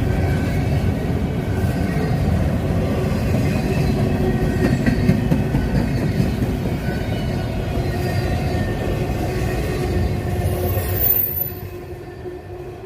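CSX freight train passing close by: a steady rumble and rattle of wheels on the rails, which fades near the end.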